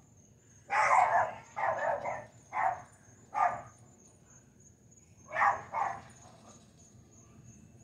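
A dog barking agitatedly: about six barks, four in quick succession, then two more a couple of seconds later. Under them runs the steady high chirring of crickets.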